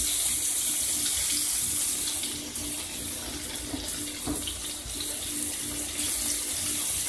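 Flour-battered chicken gizzards deep-frying in hot oil in a wok: a steady, dense sizzle with a few small crackles.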